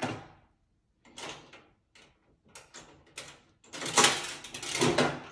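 Token-operated vending machine's dispensing mechanism being worked: a series of separate clicks and clunks, then a louder clatter lasting about a second and a half, starting a little under four seconds in, as the next pack is dispensed.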